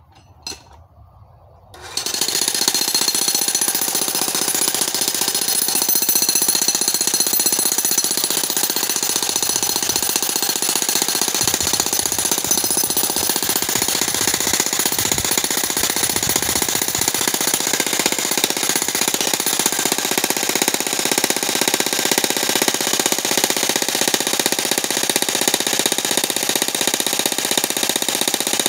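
Handheld demolition hammer (jackhammer) breaking rock. It starts about two seconds in and then runs steadily as a loud, continuous rattle of fast blows.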